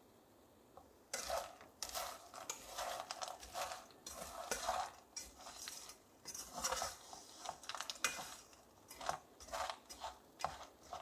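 Wooden slotted spatula stirring and scraping sugar-crusted peanuts around an aluminium pot, the coated nuts rattling against the metal in irregular strokes that start about a second in. The sugar syrup has dried to a sandy crystallized coating on the peanuts.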